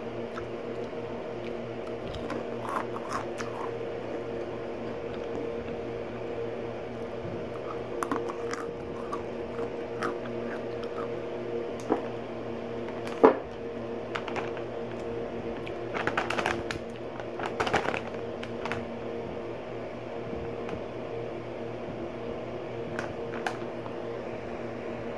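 Crunchy mixed snacks being chewed and handled in a glass container: scattered crunches and light clicks, the loudest a sharp click about 13 seconds in, over a steady low hum.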